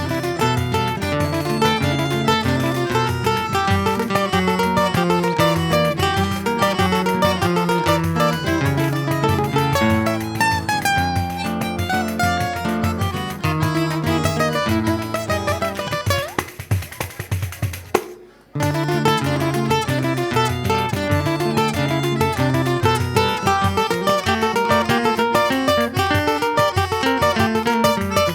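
Acoustic plucked-string ensemble playing a choro: guitar bass runs under a plucked melody. A bit past halfway through the playing thins out and stops for a moment, then picks up again.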